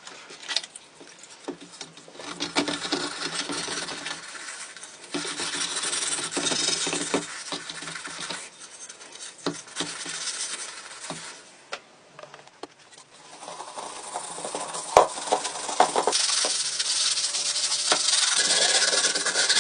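Rubbing and scraping on the rusted steel helmet in stretches of a few seconds, broken by short pauses and scattered sharp knocks.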